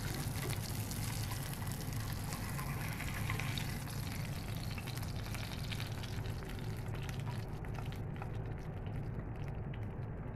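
Salmon fillets sizzling in butter in a frying pan, a fizzing hiss that fades away about eight seconds in. A steady low hum runs underneath.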